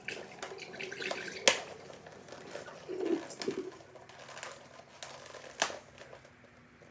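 Water sloshing and dripping as a thawed pot roast is lifted out of its defrosting water, with two sharp knocks, one about a second and a half in and one near the end.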